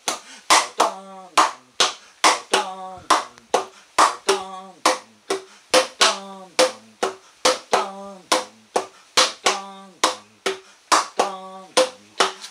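Taiko drumming rhythm struck with empty plastic PET bottles used as drumsticks, about two to three strokes a second. Each stroke is a sharp crack followed by a short ringing tone.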